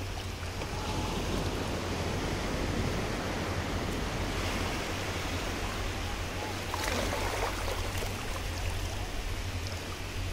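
Sea surf washing up a sandy beach: a steady rush of waves and shallow water over the sand.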